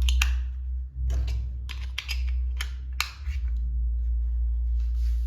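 Handling noises from a soundbar and its plastic wrapping: a string of sharp, irregular clicks and knocks with some rustling, over a steady low hum.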